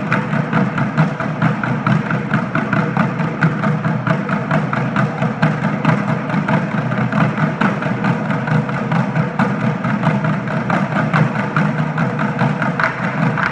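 A drum line of several drummers playing a fast, steady rhythm of closely spaced strikes on drums, with no break.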